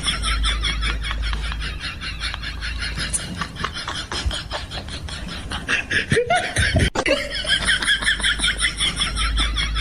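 A person laughing: a quick, high-pitched run of laughs.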